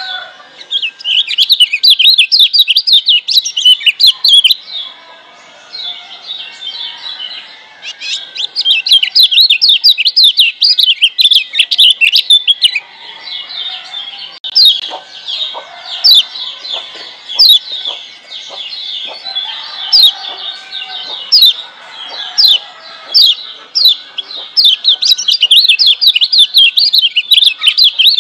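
Lombok yellow white-eye (kecial kuning) singing, a wild bird's song of fast runs of high, sharply falling chirps. Some stretches come in rapid strings, and others as single notes spaced apart.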